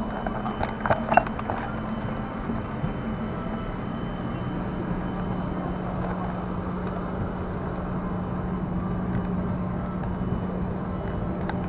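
Steady hum of a Boeing 747-400's cabin air, the ventilation running during boarding, with a low droning tone that grows a little stronger partway through. A few sharp knocks and clicks sound about a second in.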